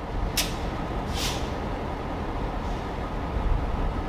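EMD SD38AC diesel locomotives running at a standstill with a steady low rumble. Two short hisses come through about half a second and just over a second in.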